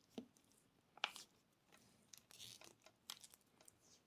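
Faint crackling and short tearing sounds of electrical insulating tape being pulled off its roll and wrapped around a wire joint, in irregular short strokes with the sharpest about a second in.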